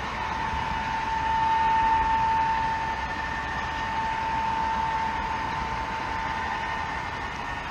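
HO-scale model freight train running along curved track: a steady high whine over the rolling rattle of small metal wheels on rail, a little louder about two seconds in.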